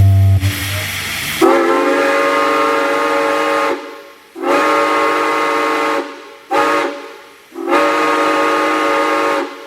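C&O six-chime steam whistle sounding its chord in four blasts, long, long, short, long: the railroad grade-crossing signal. The whistle comes in after about a second and a half of hissing.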